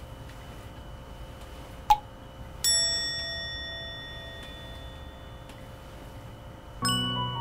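A single bell-like chime sound effect: one struck ding that rings and fades away over about two seconds, following a sharp click, with the background piano music cut out; piano music comes back in near the end.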